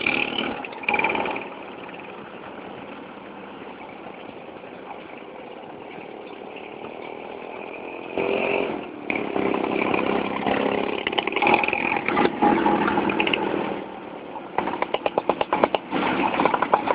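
Two-stroke Vespa scooter engines running on the move, the sound swelling and fading as the group rides. Near the end comes a run of rapid, even pulses of engine sound.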